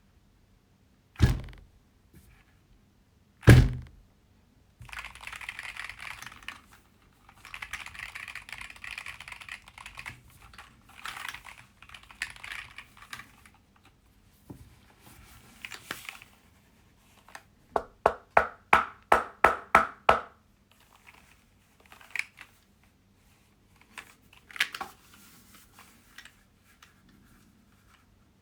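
Handling of a Keychron Q6 HE aluminium keyboard and its packaging. Two heavy thunks come in the first few seconds, followed by stretches of rustling and sliding, then a quick run of about ten evenly spaced clicks, roughly four a second, and a few single clicks near the end.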